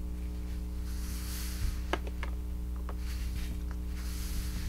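Faint handling of small plastic toy figures: a few light taps as they are set down, and soft rustling, over a steady low electrical hum.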